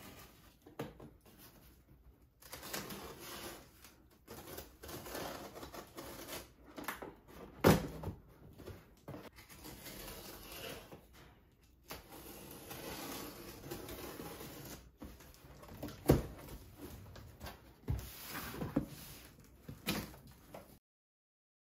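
Packing tape being pulled off a cardboard box and the box's flaps opened: crackling tape and rustling, scraping cardboard, with a few sharp knocks, the loudest about eight and sixteen seconds in.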